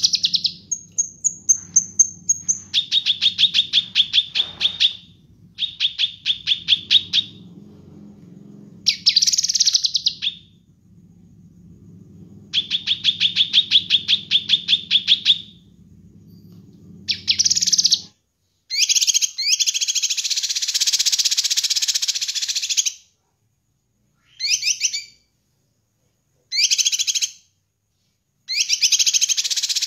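Caged cucak kinoi (blue-masked leafbird) singing. It gives a high thin whistle, then several fast rattling trills, then from about 17 seconds in, harsh scratchy chattering phrases broken by short pauses. A low hum runs under the first part and stops about 18 seconds in.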